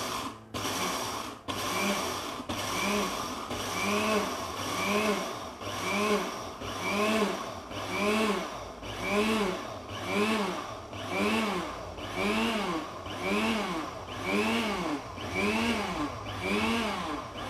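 300-watt IDEALIFE blender's motor run in repeated pulses, grinding granulated sugar to powdered sugar in its small dry-grinding jar. After a few short bursts at the start, it settles into a regular run of about three pulses every two seconds, each spinning up and falling back in pitch.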